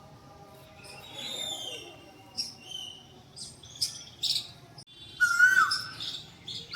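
Small birds chirping and twittering, then about five seconds in an Asian koel gives a loud whistled call that holds one note and drops away at the end.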